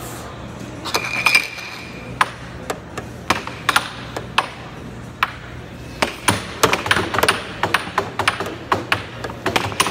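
Air hockey puck and mallets clacking: sharp plastic knocks as the puck is struck and rebounds off the table rails. The hits are sparse at first, then come in a quick flurry from about six seconds in.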